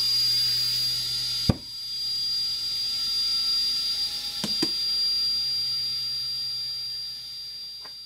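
Compressed air from a small air tank rushing through the valve into a motorcycle tire to seat the bead: a loud steady hiss with a thin whistle, fading near the end. A sharp pop comes about a second and a half in, and two smaller clicks come around four and a half seconds, typical of the tire bead snapping onto the rim.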